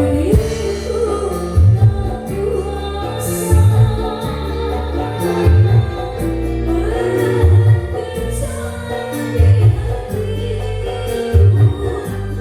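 Music with a singing voice over sustained instruments, with a deep bass hit about every two seconds, played through a PA sound system.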